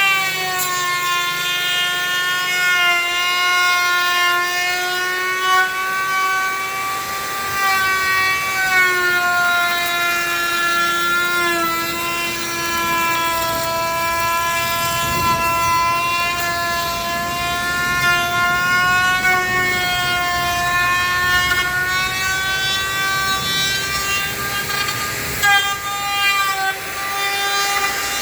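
A high-speed power tool motor running with a steady whine, its pitch sagging briefly a few times.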